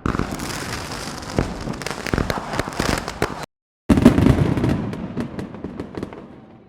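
Dense rapid crackling and popping in two bursts: the first cuts off abruptly about three and a half seconds in, the second starts loud just after and fades away toward the end.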